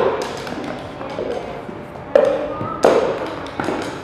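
Plastic cups knocked and tapped on a hard floor in a cup rhythm game: a sharp knock at the start, then three more about two, three and three and a half seconds in, with lighter taps between.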